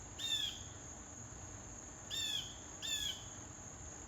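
Blue jays calling: three short, harsh calls that drop slightly in pitch, one near the start and two close together about two seconds later. They sound over a steady high-pitched drone of insects.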